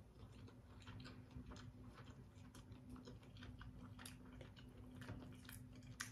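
Faint chewing with light, scattered clicks of a fork while sushi is eaten, over a steady low hum.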